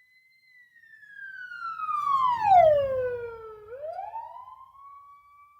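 A police car siren sound effect run through a Doppler shift effect, heard as one wailing tone passing by at a distance. It grows louder as its pitch falls steeply, is loudest about two and a half seconds in, then swings back up partway and fades away.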